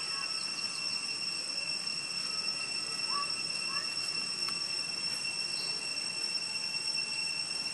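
Steady, high-pitched insect drone, one unbroken whine running through the forest ambience. A few faint short chirps come in a few seconds in.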